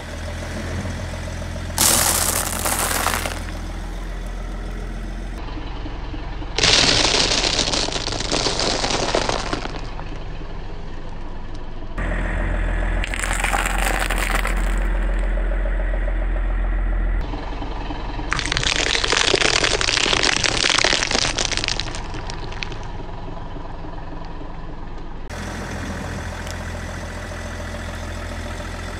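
A car tyre rolling over and crushing a series of objects, the first a block of dry instant noodles. There are four separate bursts of crunching and crackling, each one to three seconds long, over the car's steady low engine idle.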